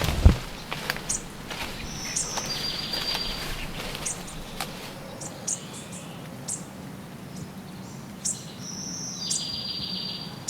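Forest birds calling: scattered short, high chirps, and one bird twice giving a high note that runs into a rapid, even trill, about six seconds apart. A single low thump comes right at the start.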